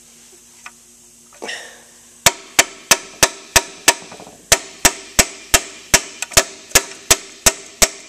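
Small hammer tapping on a 1939 Farmall F-20's connecting rod, driving the piston with its rings into the cylinder. The sharp metal-on-metal blows begin about two seconds in and come steadily, about three a second.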